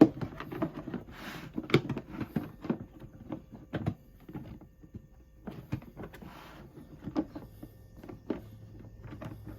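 Battery box lid being handled and pushed shut over the battery: an irregular run of clicks and knocks, with short stretches of scraping.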